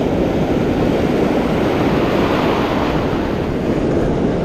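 Ocean surf breaking and washing up over the sand, a steady rushing hiss that swells a little past the middle, with wind rumbling on the microphone.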